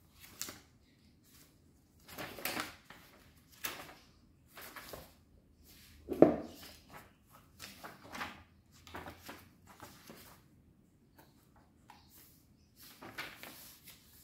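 Paper pages of a large pad being turned and handled: a string of irregular papery rustles and swishes, with one louder thump about six seconds in.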